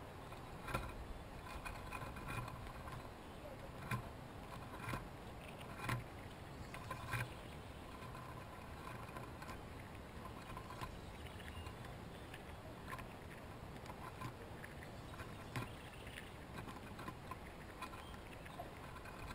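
Chipmunks shucking dried corn: faint, scattered clicks and knocks over a steady background hiss.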